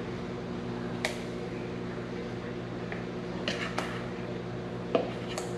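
A steady mechanical hum from a kitchen appliance or fan, with about five light clinks of a metal fork against a mixing bowl as fish pieces are tossed in flour coating.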